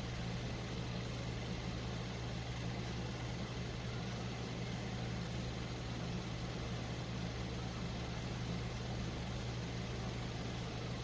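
Steady machine hum with an even, fan-like hiss, holding level throughout.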